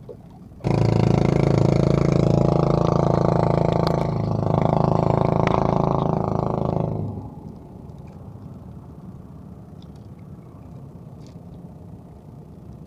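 A small boat engine running at a steady speed, loud, coming in suddenly about half a second in and falling away about seven seconds in to a low steady background noise.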